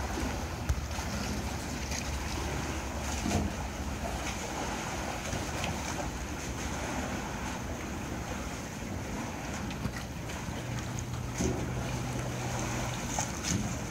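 Dockside harbour ambience: wind on the microphone and water lapping against the pier, with a few light knocks. A low steady hum comes in about two-thirds of the way through.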